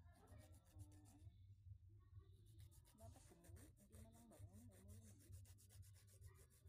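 Hand file rasping against dry skin on the toes in quick back-and-forth strokes, several a second, scraping the dead skin away; the filing pauses briefly about a second in, then runs on.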